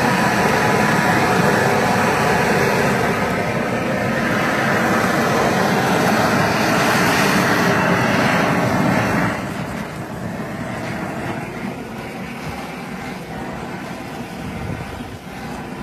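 Harbor Freight propane flamethrower running with a steady jet-like rush of flame against steaks on a grill. It shuts off about nine seconds in, leaving a quieter steady hiss.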